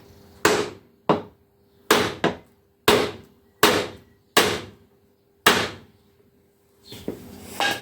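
Rubber mallet striking a block of wood, about eight separate blows at an uneven pace and then a few lighter knocks near the end, driving a tight-fitting dust seal down into a motorcycle fork tube.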